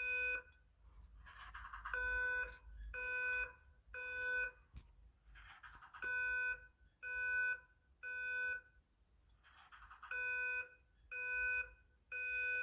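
Simplex TrueAlert fire alarm speaker sounding the temporal code-3 evacuation tone: three half-second beeps, a pause, then three more, repeating about every four seconds. This is the standard evacuation signal.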